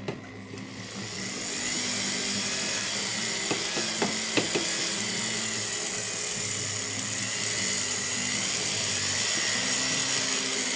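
Rotary tool with a felt polishing wheel buffing wax into rosewood burl. Its motor spins up over the first second or so, then runs steadily with a high whine.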